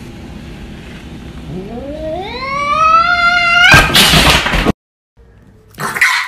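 Domestic cat yowling: one long call that climbs steadily in pitch over about two seconds, then breaks into a loud, harsh screech as the cat lunges, and cuts off suddenly.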